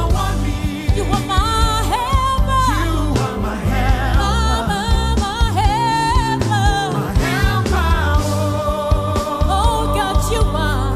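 Gospel song: a voice singing with vibrato over a steady bass and beat.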